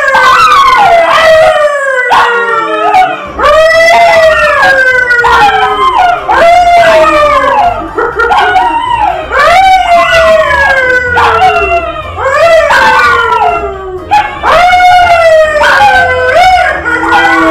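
A man and two dogs, a yellow Labrador and a brown poodle, howling together: long falling howls from several voices at once, repeated with brief breaks.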